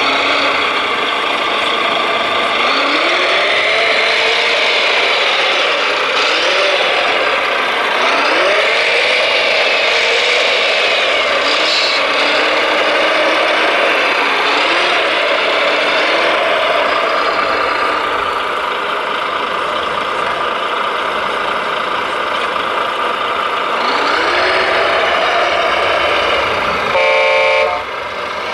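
Radio-controlled construction machine models running, their motor sound rising and falling in pitch again and again as they work. A short horn honk sounds near the end.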